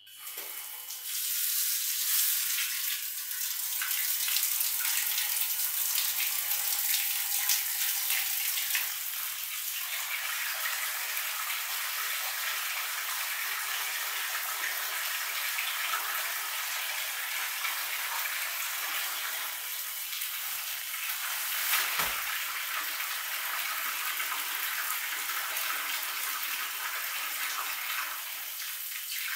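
Water running steadily from a pipe into a large stainless-steel dough-mixer bowl, a constant splashing hiss. There is a single sharp knock about 22 seconds in.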